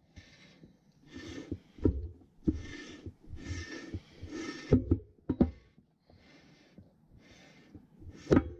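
Rhythmic heavy breathing of someone straining under a heavy load, with a few sharp metal clunks, the loudest near the end, as a Farmall H crankshaft is lowered into the block and settles onto its main bearings.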